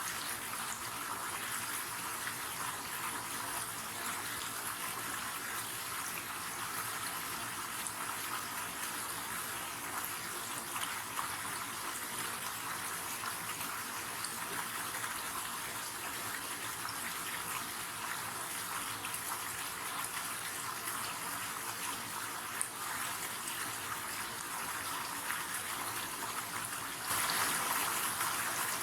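River water flowing steadily, an even hiss of running, splashing water with little deep rumble. It gets a little louder near the end.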